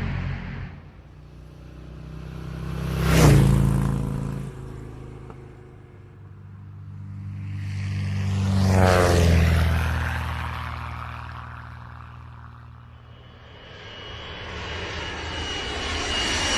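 Vehicle engines passing by one after another, each swelling and fading: a quick pass about three seconds in, a slower one peaking around nine seconds with a falling sweep in tone as it goes by, and another approaching near the end.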